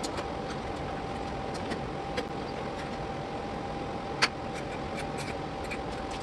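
Steady mechanical hum with a faint steady whine, broken by a few sharp clicks, the loudest about four seconds in.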